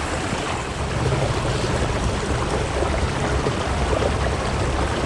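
Steady rush of water from a creek waterfall, a dense even noise.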